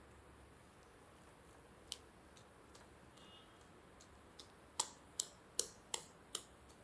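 A few short, sharp clicks of a utensil knocking against the steel mixer jar while freshly churned butter is gathered inside it, one about two seconds in, then a quick run of about six knocks near the end.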